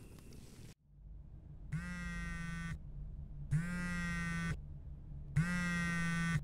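An electric buzzing sounds three times at an even pace. Each buzz lasts about a second and holds one steady low pitch, with a faint hum between them.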